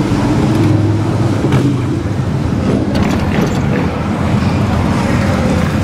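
Steady low engine rumble heard from inside the cab of a 1955 Chevrolet while it is being driven.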